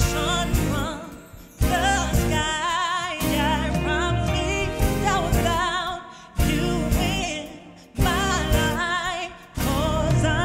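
A woman's R&B vocal sung live with a band: long held, ornamented lines with heavy vibrato over sustained chords that are struck afresh about every second and a half.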